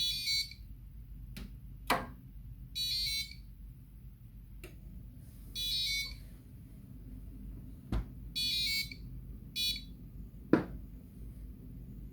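Electronic buzzer of a homemade freezer door alarm beeping in short high-pitched bursts about every three seconds, the warning that the freezer door has been left open. A few sharp knocks come between the beeps; the loudest is near the end, after the beeping has stopped.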